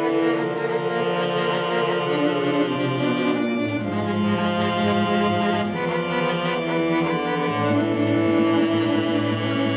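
String quartet playing: the first violin holds long notes over the second violin's staccato repeated notes and the cello's driving, accented sixteenth-note figure, with the viola on slower sustained lines.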